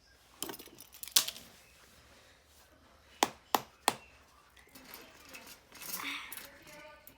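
Small fidget toys being handled and set down: scattered light clicks and clinks, with three sharp clicks in quick succession about three to four seconds in.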